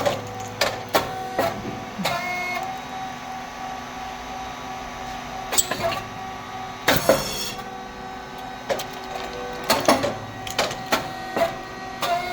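SYP5804T rice cake popping machine running its cycle: a steady hum under repeated mechanical clacks and knocks of the moulds and press, with a short burst of hissing noise about seven seconds in.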